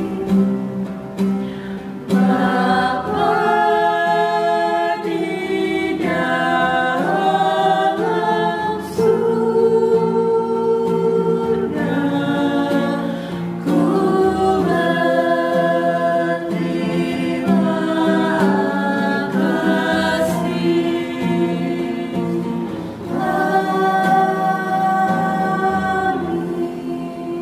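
Several women's voices singing together in a slow song with long held notes, tapering off near the end.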